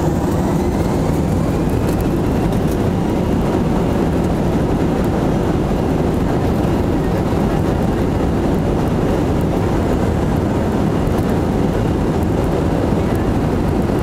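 Airbus A321 jet engines running loud and steady, a low rumble with a faint whine rising in pitch over the first couple of seconds.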